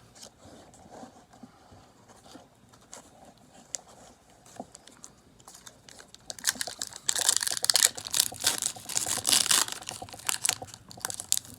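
Foil trading-card booster pack wrapper crinkling as it is handled and torn open: faint rustles and clicks at first, then loud, dense crackling starting about six seconds in.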